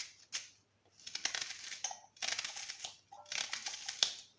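Knife cutting through a raw red onion: three crisp crunching cuts, each lasting under a second, about a second apart.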